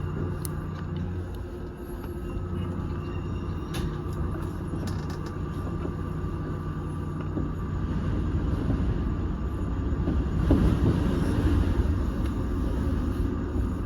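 Electric commuter train running on the Keiyo Line, heard from inside the front car: a steady low rumble of wheels on rail with a faint electrical hum. It grows louder about ten seconds in.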